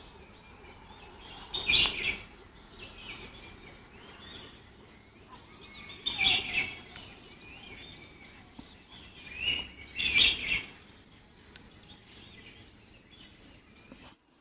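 Indian pitta giving its loud two-note whistle three times, about four seconds apart, with fainter bird calls in between.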